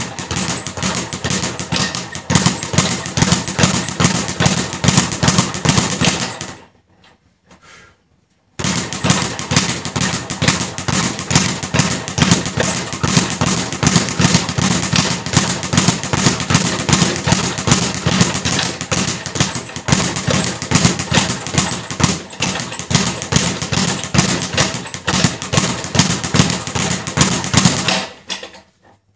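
Speed bag being punched in a fast, continuous rhythm, the bag rattling rapidly against its rebound platform. The hitting stops for about two seconds some six seconds in, then resumes and runs until just before the end.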